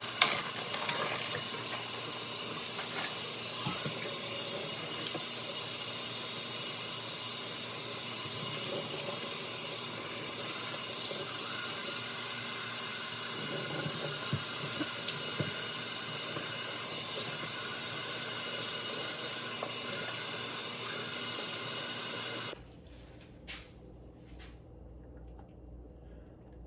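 Kitchen sink tap running steadily as raw chicken is rinsed under it. The water is shut off abruptly about 22 seconds in, leaving only faint handling sounds.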